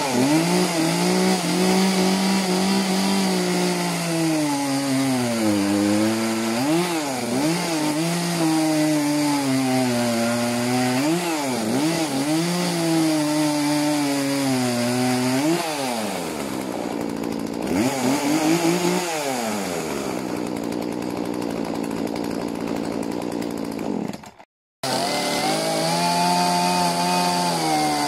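Two-stroke chainsaws cutting through a log at full throttle. First a 42 cc McCulloch CS 42S, its revs sagging and climbing again over and over as the chain bites, easing off about sixteen seconds in. After a brief break comes a 31.8 cc Stihl MS 181, cutting with its revs held high.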